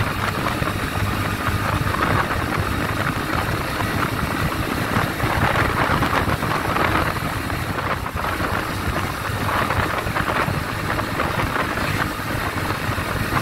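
Bajaj Pulsar NS125's single-cylinder engine running hard on a full-throttle top-speed run, heard from the rider's seat, steady throughout and mixed with a constant rush of wind and road noise.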